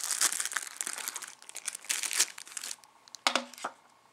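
Clear plastic wrapping around throwing knives crinkling in irregular bursts as the wrapped package is handled and lifted out of its box, with a short knock a little after three seconds.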